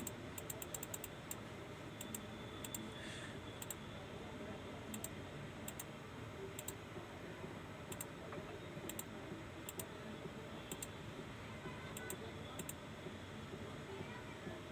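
Sparse clicking of a computer keyboard and mouse: a quick run of clicks near the start, then single clicks about once a second, over a low steady hiss.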